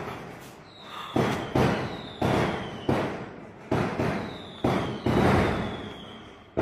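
A run of firework bangs, about seven sharp explosions at uneven intervals, each followed by a long rumbling fade, with a faint high whistle sliding down between some of them. The bangs sound like gunfire.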